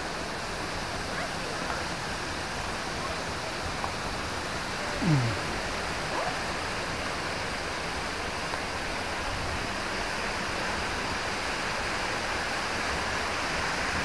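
Steady rush of a waterfall and the stream below it, an even noise throughout. About five seconds in, a brief sound falling in pitch rises above it.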